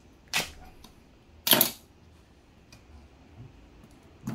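A kitchen knife cutting a watermelon into thick slices: three short, sharp knocks, the loudest and longest about a second and a half in.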